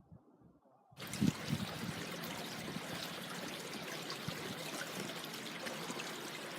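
Water trickling steadily, as in a small stream. It starts suddenly about a second in, after near silence.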